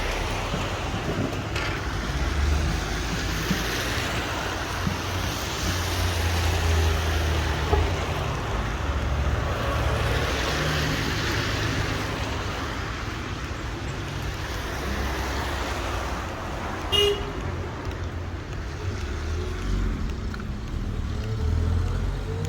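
Street traffic on wet roads: cars passing with tyre hiss and engine rumble, swelling as vehicles go by. A short car horn toot sounds about three-quarters of the way through.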